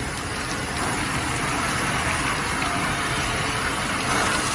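Steady rush of water from a flushing water torch, over a low, even rumble.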